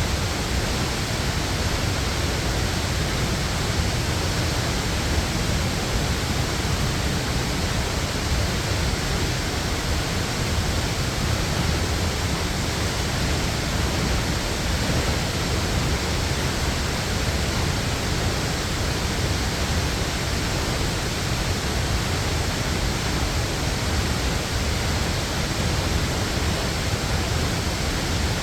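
Waterfall, water rushing and splashing in a steady, unbroken roar.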